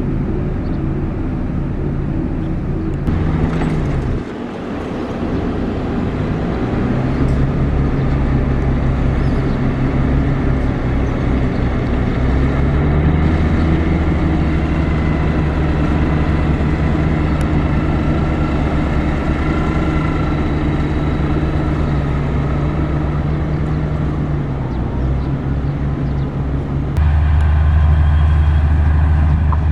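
Diesel engine of heavy road-construction equipment running steadily under load, its note rising about midway and falling back later, then louder and lower near the end.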